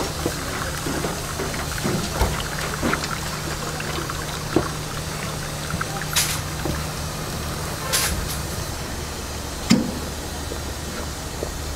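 Broth dripping and splashing back into a big cooking pot as braised pig's feet are lifted out in a wire strainer, with scattered small clinks and two short splashy bursts about six and eight seconds in, over a steady low hum.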